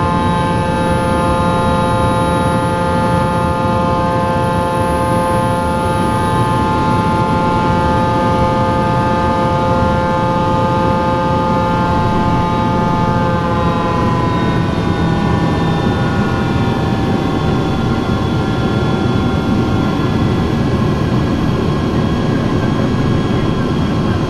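Twin rear-mounted turbofan engines of a Cessna Citation Sovereign business jet running in the climb, heard inside the cabin: a steady roar under a high whine. About two-thirds of the way through the whine slides a little lower and the roar stays steady.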